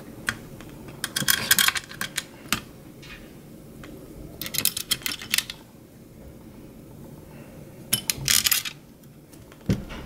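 Light metallic clicks and clinks from the sheet-metal internal frame of a mini desktop computer as it is handled and lined up over the board, in three short bursts of quick rattling clicks.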